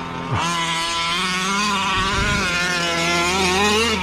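Small two-stroke petrol engine of a 1/5-scale gas RC car running hard through its tinny stock exhaust. The pitch drops sharply off the throttle about a third of a second in, then wavers with the throttle and climbs near the end. The driver thinks it was running a bit lean.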